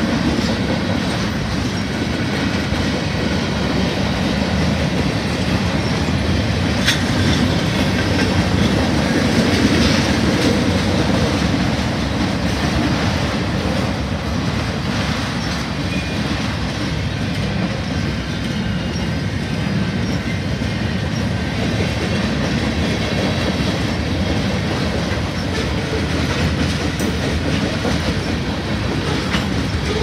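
Freight cars of a manifest train rolling past, with a steady rumble and the clickety-clack of wheels over rail joints. There are a couple of brief sharper clanks about 7 and 10 seconds in.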